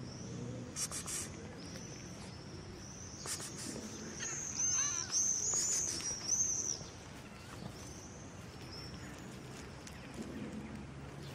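Small songbirds chirping: quick, high, arching notes repeated in a run that grows loudest in the middle, with a short series of lower falling chirps among them. A few brief crackles come near the start.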